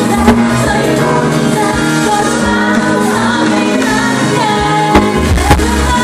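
Live pop music over a concert PA: women singing with microphones over a band with drums. A few sharp hits stand out, about a third of a second in and twice near the end.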